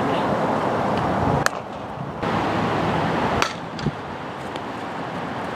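Two sharp smacks of a softball during a fielding drill, about two seconds apart, over a steady outdoor rush of background noise, with a softer knock shortly after the second smack.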